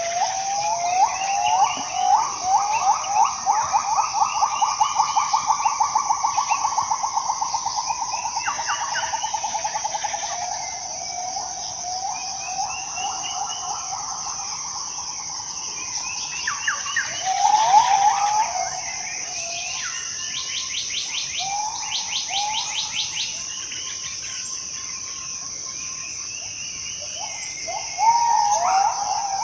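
Bornean rainforest ambience: insects keep up a steady high-pitched drone while birds call over it. A long, fast run of repeated notes rises and then falls away over the first ten seconds, and other calls come and go, louder briefly about two-thirds of the way through and again near the end.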